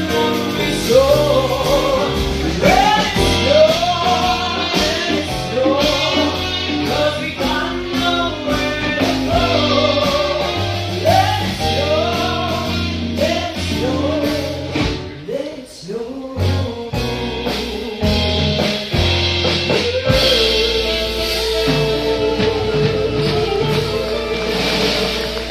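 A song with a singing voice over instruments, the melody gliding up and down over a steady bass; after a brief dip about fifteen seconds in, the voice holds one long wavering note.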